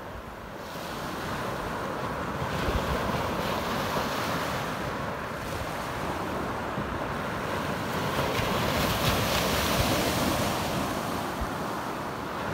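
Small waves breaking and washing up a pebble beach; the surf hiss swells and fades a few times. Wind buffets the microphone throughout.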